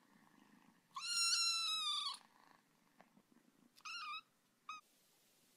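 A domestic cat meowing three times: one long, high meow about a second in, a shorter wavering meow near the four-second mark, and a brief one just after. Faint purring sounds underneath at first.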